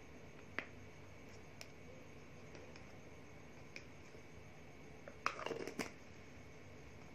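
Faint clicks, then a short cluster of louder rustling and knocks about five seconds in: a loose rose powder container being handled. In between, only quiet room tone.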